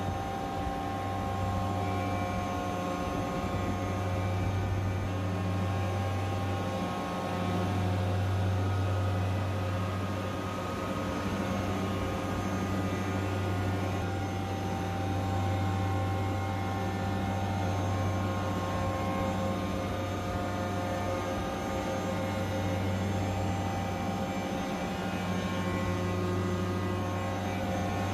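York screw chiller with a variable-speed drive running: a steady low hum with several steady whining tones above it from the screw compressor and drive.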